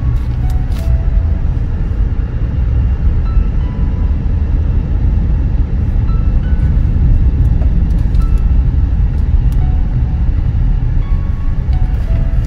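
Steady low rumble of road noise inside a moving car's cabin, with faint music over it.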